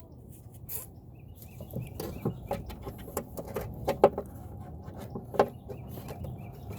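Irregular sharp clicks and knocks, about half a dozen, from hand-tool work on the Husqvarna mower's self-propel cable fittings as the pins are worked into their clamps. Faint bird chirps sound behind them.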